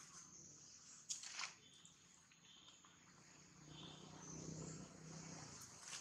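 Faint outdoor ambience with a steady high insect drone. A short sharp sound about a second in, and a low hum for a couple of seconds in the second half.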